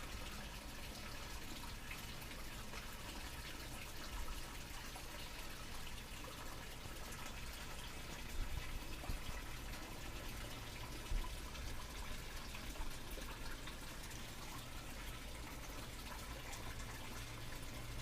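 Steady hiss of rain falling during a thunderstorm, with a few brief louder knocks about 8 and 11 seconds in.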